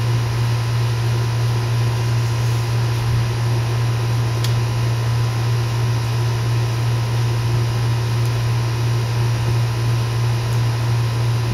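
A steady, loud low hum with no change in pitch or level, like a fan or other machine running, with a couple of faint light clicks about four seconds in and near the end.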